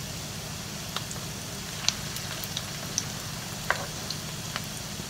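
Rice-and-cheese patties frying in hot oil in a frying pan: a steady sizzle with scattered sharp pops and crackles.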